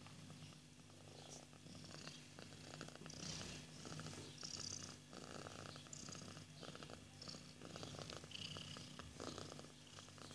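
Cat purring steadily and softly, with faint scratching and rustling from playing kittens on top.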